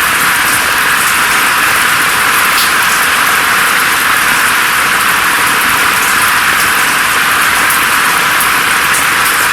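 Steady rain falling: an even, bright hiss with little low rumble, and scattered faint ticks of single drops.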